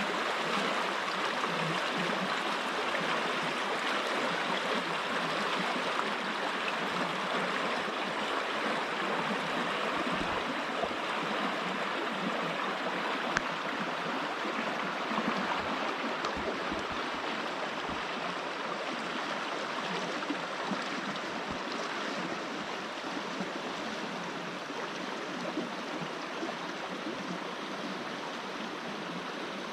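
Grey Wolf River rushing over rocks and small falls: a steady, even noise of fast-flowing water that eases a little toward the end.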